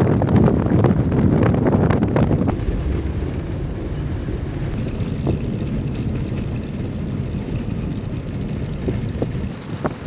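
Wind buffeting a microphone mounted on the roof of a moving car. About two and a half seconds in it cuts abruptly to the steadier, duller running noise of the car driving on a dirt road, with a few faint ticks.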